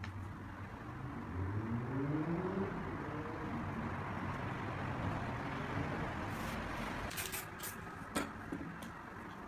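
Paper rustling and brief hisses as a magazine sheet and spray cans are handled, over a steady background rumble that has a rising drone in the first few seconds. A sharp knock comes about eight seconds in.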